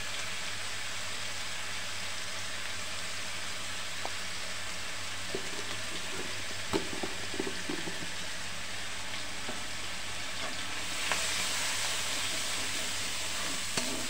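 Hot oil and ground turmeric and chili powder sizzling steadily in a black iron karahi. About eleven seconds in the sizzle gets louder as the spices are stirred with a metal spatula, with a few light clicks of the spatula against the pan.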